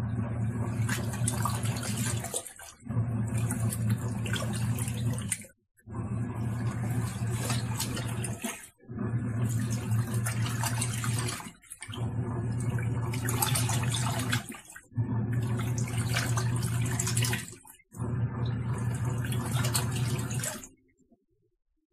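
Tangarus portable washing machine's wash cycle: the motor hums and churns the water in runs of about three seconds, stopping briefly between runs, seven times, then stops near the end.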